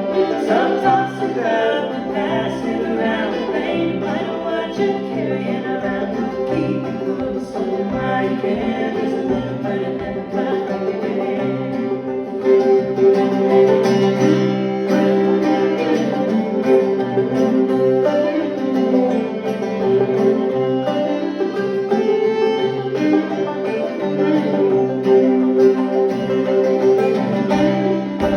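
Old-time string band playing an instrumental break on banjo, guitar and fiddle, in a steady driving rhythm.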